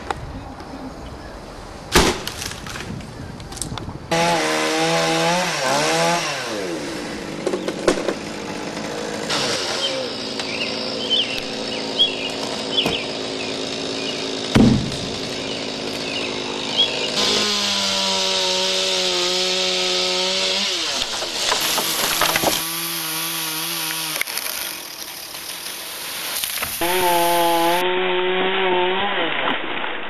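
Two-stroke chainsaw running in several spells, revving up to a steady high pitch while cutting and dropping back between cuts. Sharp knocks sound in between, the loudest about two seconds in and near the middle.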